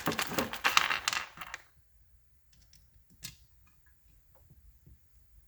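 Small metal hardware being handled on a workbench: a rattling clatter of clinks for about a second and a half, then a few light clicks and taps.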